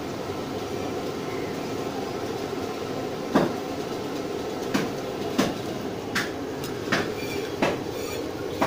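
Steady street-market background hum, broken from about three seconds in by a string of sharp knocks and clicks, about eight in all, the first the loudest.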